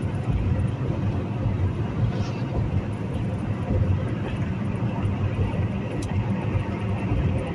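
Steady drone of a semi truck's engine and tyre noise heard inside the cab while cruising at highway speed.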